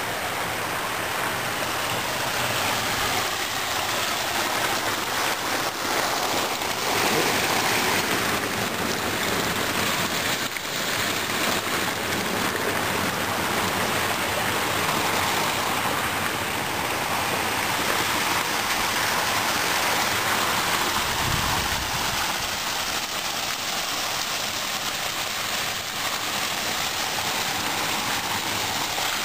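Steady splashing hiss of water pouring from a garden fountain's spout into its pond basin.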